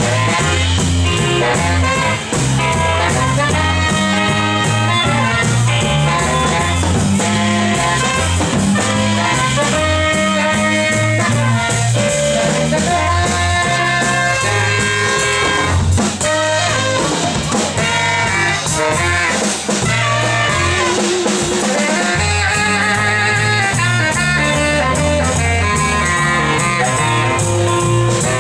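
Live band playing: horn melody lines with some wavering held notes over a moving bass line and drum kit.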